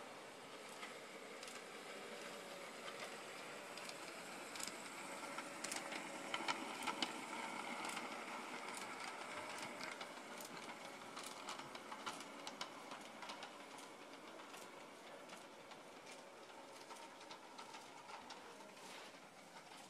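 G gauge model train running on brass track: a steady electric-motor whir with irregular clicks from the wheels, louder in the middle as it passes close by.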